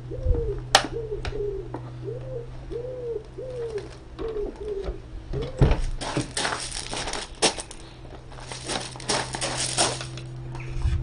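A pigeon cooing in a rhythmic run of repeated calls for the first half. From about six seconds in, scratchy scraping and rustling as a car's rubber window weather strip is prised up and pulled off the door frame.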